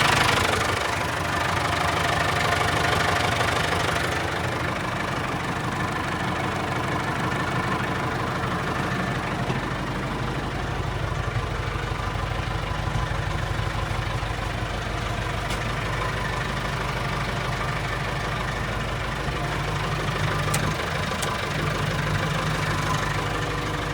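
JCB 3CX backhoe loader's four-cylinder Perkins diesel engine idling steadily, after a louder, higher-pitched sound dies down within the first second.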